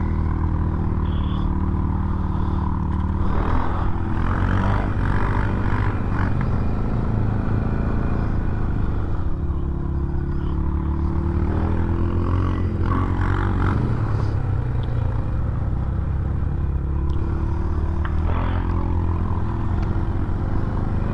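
ATV engine running steadily under load on a snowy downhill track, its pitch rising and falling a few times as the throttle changes.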